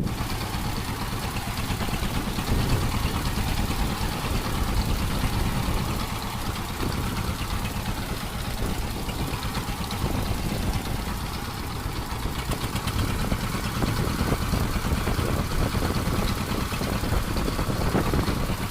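Fishing boat's engine running steadily, a low, even rumble.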